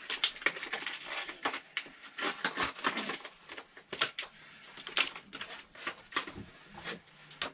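Irregular rustles, clicks and small knocks of objects being handled on a workbench, paper or packaging rustling among tools.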